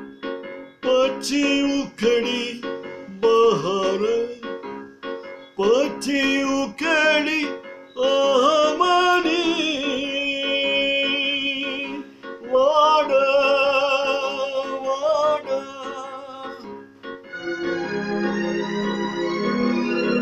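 A man singing a Gujarati sugam sangeet (light music) song in long, wavering, ornamented phrases over electronic keyboard accompaniment. In the last few seconds the keyboard settles into sustained organ-like chords.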